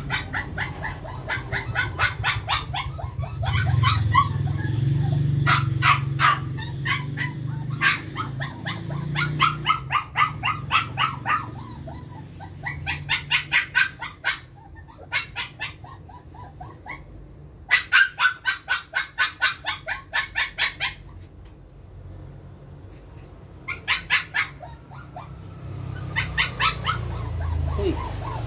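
Puppy licking and smacking at the tip of an oral syringe as it is fed liquid dewormer. It makes bursts of quick wet clicks, about seven a second, with short pauses between the bursts.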